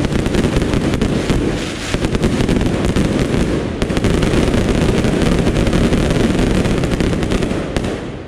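Fireworks display: a dense, continuous barrage of shells bursting and crackling, loud throughout, dying away near the end.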